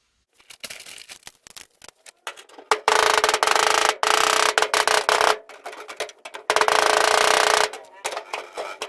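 A power tool runs in two loud, steady stretches, the first about 2.5 s long and the second about a second, as it cuts a hole in a sheet-metal duct. Metallic clicks and scrapes come before and between the stretches.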